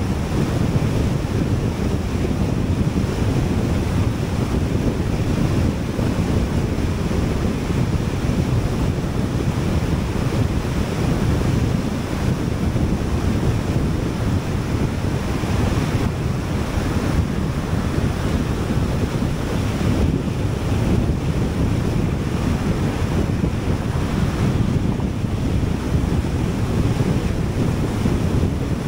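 Steady road and wind noise of a car driving at expressway speed: a constant low rumble of tyres and rushing air.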